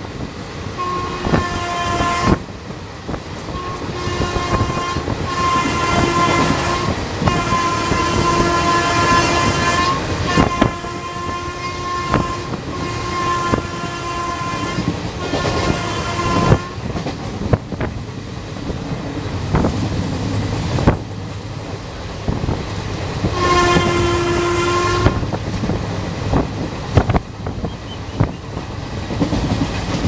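WAM4 electric locomotive's horn sounding a long run of repeated blasts, some short and some held for two seconds or more, through the first half and once more near the end. Under it the coach wheels clatter over rail joints at speed.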